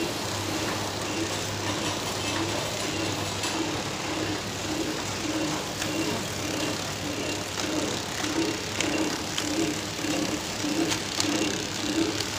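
Automatic feeding and flow-wrap packing machine running: a steady low hum with a low, rhythmic pulse a little under twice a second, and scattered light clicks.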